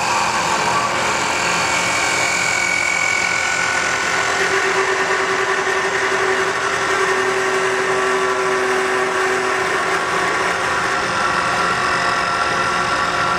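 CNC wood-turning lathe running steadily, its spindle turning the wooden workpiece as the cutter works it, with a higher tone in the first few seconds giving way to a lower tone in the middle.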